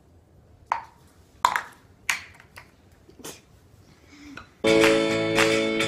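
A handful of sharp clinks and taps of kitchen utensils while cake batter is stirred in a glass mixing bowl. Background music comes in about three-quarters of the way through and is the loudest sound.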